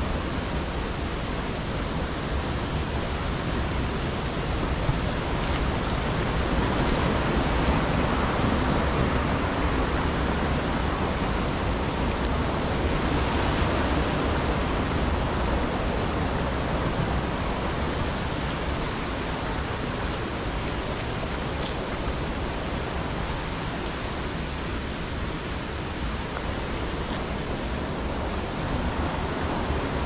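Mountain stream running, a steady rush of flowing water that swells a little a few seconds in.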